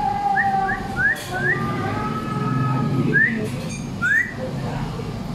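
A man whistling through pursed lips: held notes broken by several short upward slides, stopping about four seconds in.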